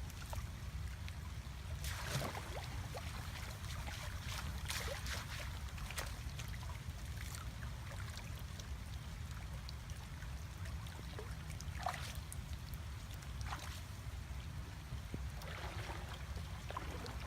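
Water splashing and trickling in short, scattered bursts, over a steady low rumble.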